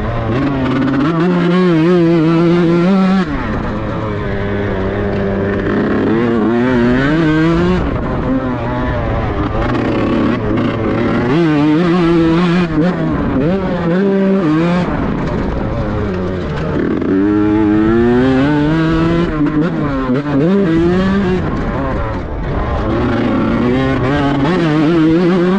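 Tuned Kawasaki Ninja grasstrack motorcycle's two-stroke engine revving again and again, its pitch climbing and falling in repeated sweeps.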